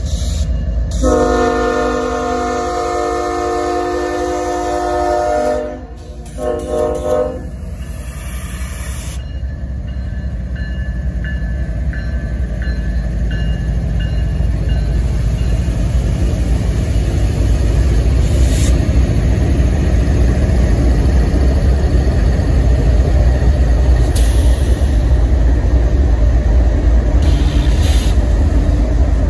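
Diesel freight locomotive air horn sounding one long blast of several notes together, then a short blast. It is followed by the low rumble of the train, growing steadily louder as it draws near.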